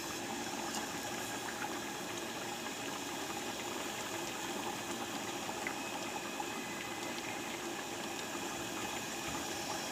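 Steady hiss of a large pot of ojri curry simmering on the stove, unchanging throughout.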